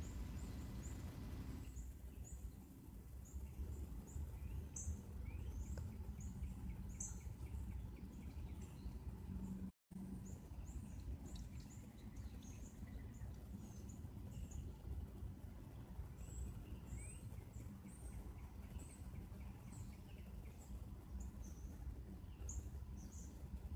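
Outdoor ambience: scattered short, high chirps over a steady low rumble. The sound cuts out for a moment about ten seconds in.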